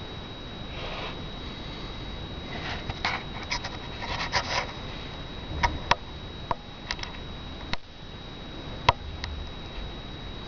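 Handling noise from a handheld camera: a string of short rustles, then a dozen or so sharp separate clicks, the loudest about nine seconds in, over a steady faint high whine.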